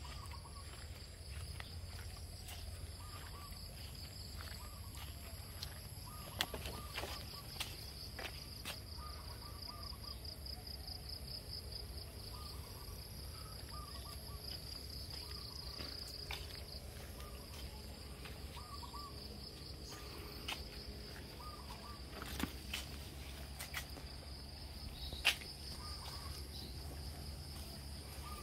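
Outdoor ambience: a steady high-pitched insect chirring, with short bird calls repeating every second or two over a low rumble. A few sharp clicks stand out, the loudest near the end.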